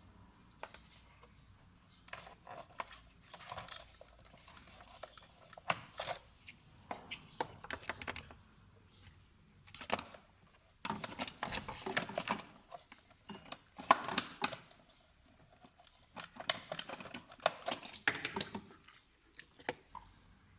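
Irregular clicking and clattering of small hard objects being handled, in bursts with short pauses, busiest in the second half.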